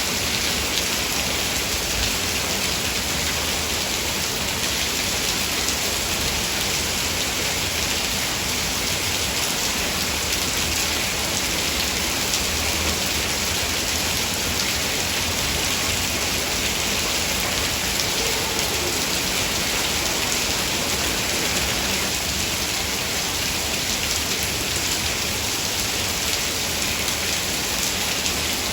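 Heavy rain falling steadily, a dense even hiss with no lulls or thunder.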